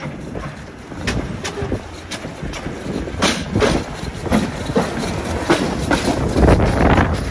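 A 1917 Brush third-rail electric locomotive hauling wooden carriages draws near and passes close by. Its wheels click on the rails over a low rumble, growing louder as it comes.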